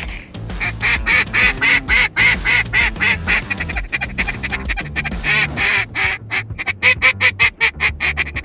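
Duck quacking in a rapid, loud run of short calls, about four a second, with brief breaks about four and six seconds in.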